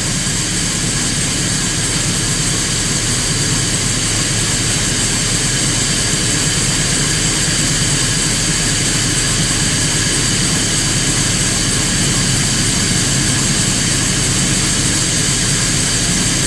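A two-ton farm feed mixer running steadily while mixing creep feed of roasted soybeans and grain: a constant machine drone with a steady high whine over a low hum.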